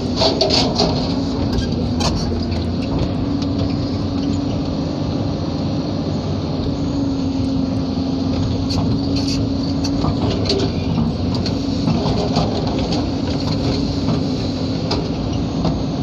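Excavator engine and hydraulics running, heard from inside the cab, with a steady hum that steps a little up and down in pitch as the bucket is worked, and scattered light clicks and rattles.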